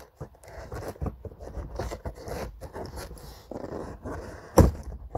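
Scissors cutting and scraping through packing tape on a cardboard box, with scraping and rustling of the cardboard as it is worked open, and one sharp knock near the end.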